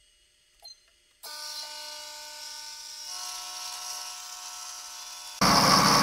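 Small CNC mill running: from about a second in, a steady machine whine of several tones over a hiss, then near the end a sudden, much louder hissing as the 3 mm end mill starts cutting into the brass key blank, an easy cut.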